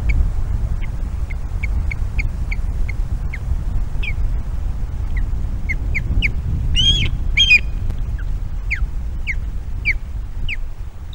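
Ospreys calling at the nest: a string of short, high piping chirps, about three a second at first and then fewer, with two louder, harsher calls about seven seconds in. Wind rumbles on the microphone underneath.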